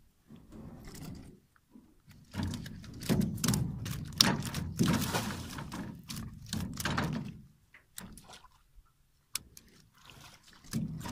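Irregular thuds and knocks on a flat-bottomed metal boat's hull, mixed with rustling, in a busy run from about two to seven seconds in, then a few single clicks near the end.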